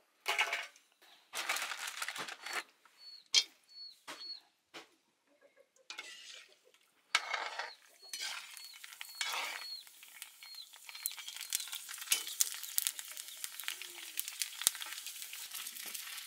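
Puris deep-frying in a wok of hot oil, sizzling, with a metal slotted skimmer clinking and scraping against the wok. The first half is scattered clinks and knocks; the sizzle turns steady and crackly from about two-thirds of the way through.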